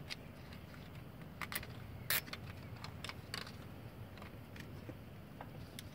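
A few short, sharp plastic clicks and handling noises as a cable tie is threaded around the ABS sensor wire and pulled tight against the strut, the loudest click about two seconds in, over a low steady background hum.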